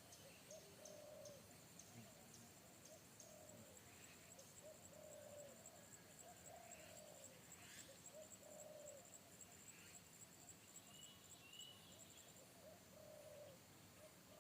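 Spotted doves (tekukur) cooing faintly: a run of short, low, rounded coos, repeating about once a second with small gaps.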